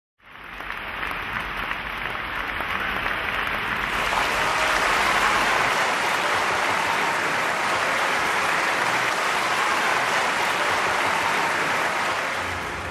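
Audience applauding, fading in from silence over the first few seconds and then holding steady.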